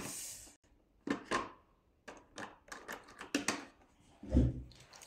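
Coloured pencil scratching across paper in short, quick strokes, about three a second, as a new pencil is tried out, with a dull thump about four seconds in.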